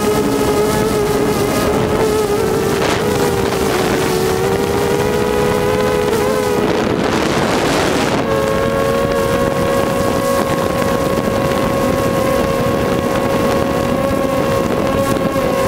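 Small camera drone's propellers and motors whining steadily in flight, the pitch drifting slightly. About seven seconds in a brief rushing noise sweeps over it, and after that the whine steps up a little higher and holds steady.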